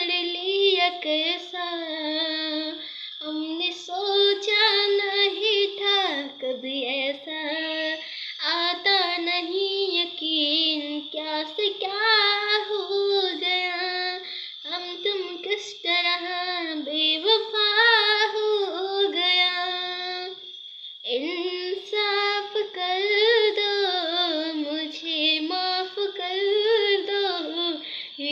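A boy singing solo and unaccompanied in a high voice, with ornamented, wavering melodic phrases separated by brief breaths and a longer pause about twenty seconds in.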